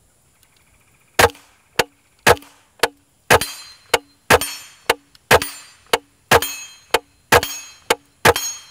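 Integrally suppressed Henry AR-7 .22 rifle firing a rapid semi-automatic string of subsonic shots, about two sharp reports a second starting about a second in, with steel targets ringing between them. The reports are real quiet.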